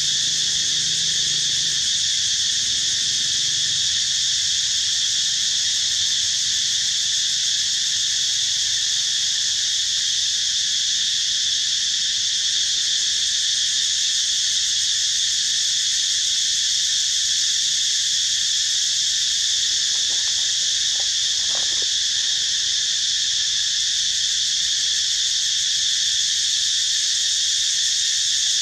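Steady chorus of insects, a continuous high-pitched shrill drone at an even level without pause.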